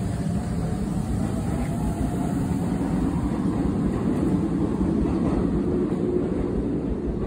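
Steady low rumble from a Keikyu 2100-series commuter train alongside the platform.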